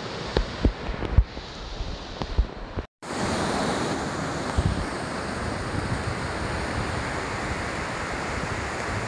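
Wind buffeting the microphone in several low thumps, then, after a sudden cut about three seconds in, a steady wash of ocean surf breaking on the beach with wind.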